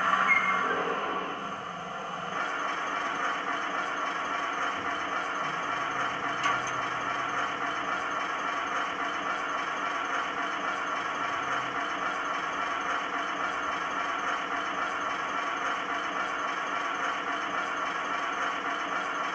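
Sound-fitted model of a GWR streamlined diesel railcar, its speaker playing a steady diesel engine idle at a standstill. The sound is louder in the first couple of seconds as the railcar eases to a stop, with a brief squeal just after the start, then settles to an even idle.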